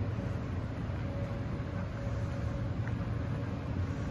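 Steady low outdoor background rumble with a faint constant hum running through it.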